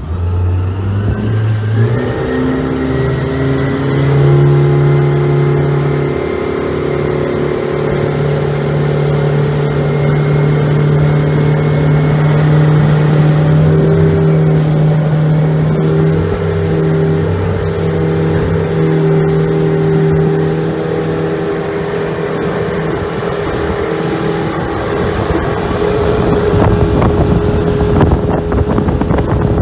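A single Suzuki 70 hp four-stroke outboard running hard, pushing a 5.8 m aluminium power catamaran up onto the plane with the second engine tilted out of the water. Its pitch climbs in the first couple of seconds and then holds steady, with wind and rushing water growing louder near the end.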